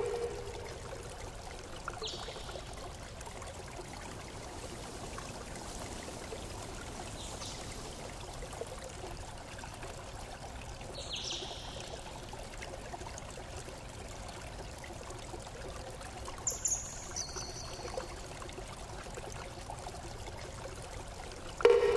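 Steady flowing-water noise, with a few short high chirps around the middle and a sudden loud ringing tone just before the end.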